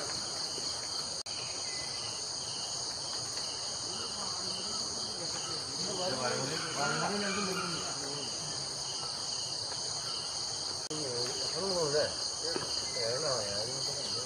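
Steady, shrill drone of a forest insect chorus in several high bands. Faint, distant voices come and go about six seconds in and again near the end.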